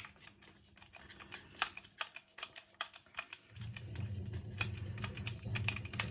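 Irregular light clicks and taps of a Festool OSC18 multi-tool's parts being handled and worked apart during disassembly. A low steady hum comes in about three and a half seconds in.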